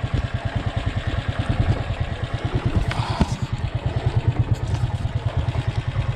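Motorcycle engine running steadily with a fast, low, even throb, with a short clatter about three seconds in.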